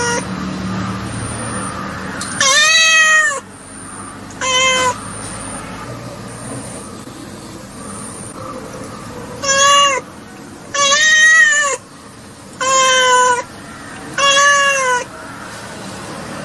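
Baby kitten meowing: six high-pitched, arching meows, a long one about two seconds in and a short one soon after, then after a pause of several seconds four more in quick succession.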